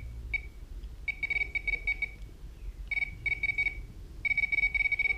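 Hand-held automotive circuit tester beeping, a high electronic tone in broken, stuttering runs of about a second with short gaps, as its probe tip is touched to the motorcycle's wiring. The beep is the tester signalling power on the wire being probed.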